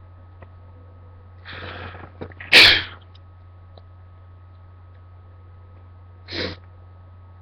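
A person sneezing: a drawn-in breath, then one loud sneeze about two and a half seconds in. A shorter, quieter burst of breath follows near the end.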